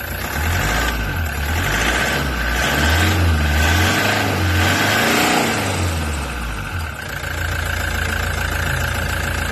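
Toyota HiAce Commuter's common-rail diesel engine running unevenly just after a hard start, its revs rising and falling, then settling into a steady idle about seven seconds in. The mechanic puts the unevenness down to air (vacuum) still in the common rail after bleeding the fuel system, which clears as it runs.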